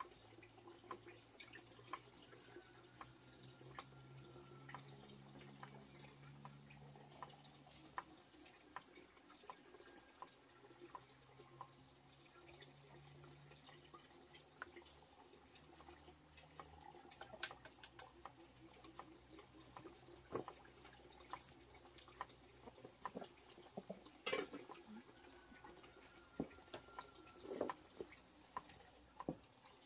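Faint trickle and drip of water running from a pipe into a tub, with scattered soft taps of a knife slicing chayote on a wooden chopping board.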